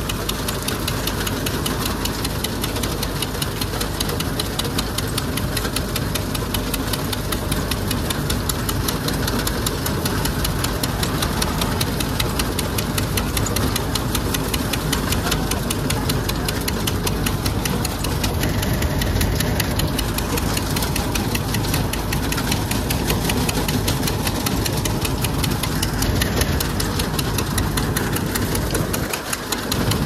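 Tractor diesel engine running steadily with a fast, even knock, powering a groundnut thresher.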